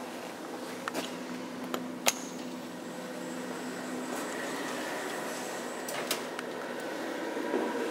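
OTIS hydraulic elevator's sliding glass doors and machinery: a steady hum with a faint high whine from about two seconds in to about six seconds in, and a few sharp clicks about one and two seconds in and again about six seconds in.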